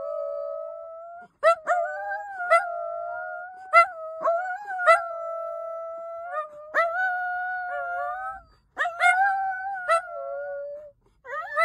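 Two dachshunds howling together in long, steady held notes, stopping briefly for breath every few seconds. Short sharp clicks come about once a second.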